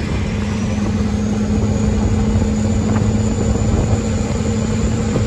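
Turbocharged Jeep 4.0L straight-six running steadily at highway cruising speed, mixed with road and wind noise from the open cab. A thin high whine sits steadily above the engine drone.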